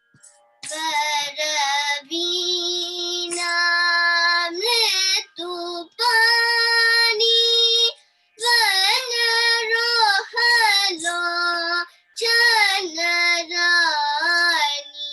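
A young girl singing a few lines of a Carnatic song, in phrases broken by short pauses, heard over a video call.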